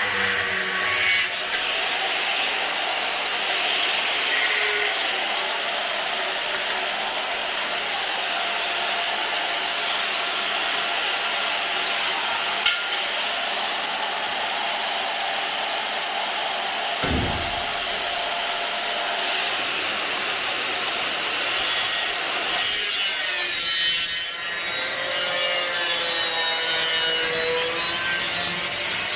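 A power tool cutting through sheet steel, a continuous harsh cutting noise over a faint motor whine. The pitch wavers as the load changes near the end.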